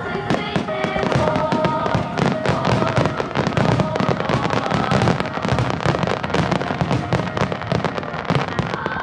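Many aerial firework shells bursting in rapid, overlapping succession, densest through the middle, with music playing underneath in held notes.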